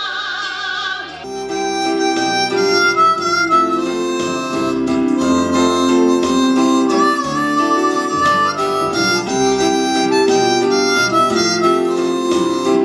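A woman's sung note with a wide vibrato, cut off about a second in, then a harmonica playing a tune of chords with a melody line over them.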